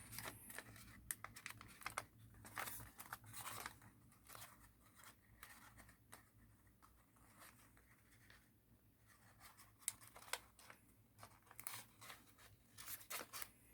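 Faint rustling and crinkling of thin origami paper being handled and folded, a flap tucked in and lined up, in scattered short crackles that go quiet for a few seconds midway.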